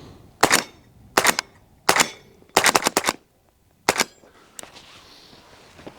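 PSA JAKL semi-automatic pistol in .300 Blackout firing supersonic rounds: three single shots about two-thirds of a second apart, then a quick string of four or five, then one more shot about four seconds in. The pistol is cycling without stoppages, which the shooter takes as a sign the warranty repair fixed it.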